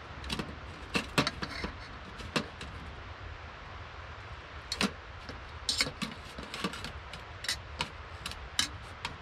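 A metal spoon clinking and scraping against a metal cooking pot as food is stirred: a dozen or so sharp, irregular taps.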